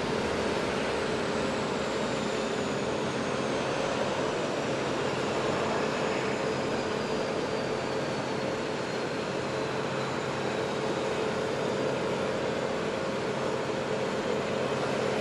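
Steady drone of running flight-line machinery, with a faint high whine that slowly falls in pitch over several seconds.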